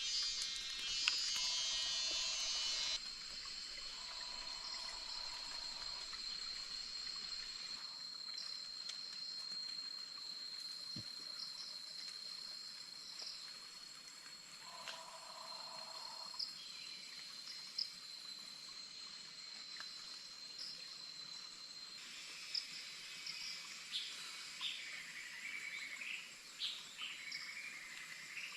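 Forest insects at dusk: a steady, high-pitched insect drone with cricket chirping. Near the end a bird calls in short, warbling, rising-and-falling notes.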